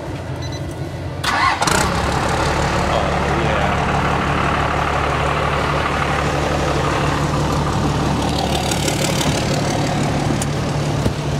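12-valve Cummins straight-six diesel firing up: it catches with a sudden loud burst about a second in, then settles into a steady idle.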